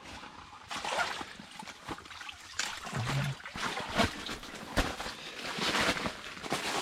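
Water splashing and dribbling in an ice-fishing hole as a hooked burbot is pulled up through it, with irregular bursts of splashing and scraping.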